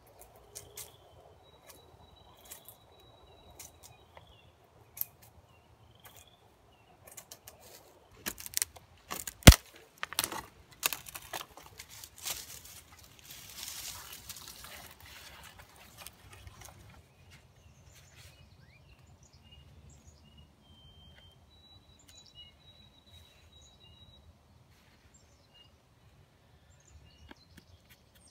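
Dead, dry aspen wood cracking and snapping as a branch is broken off by hand: a run of sharp cracks about eight to twelve seconds in, one much louder than the rest, then a few seconds of rustling and scraping. Small birds chirp and whistle faintly before and after.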